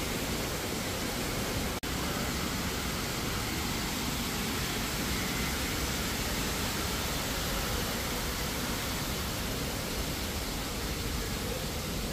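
Steady, even rushing hiss of background noise, with a brief dropout about two seconds in.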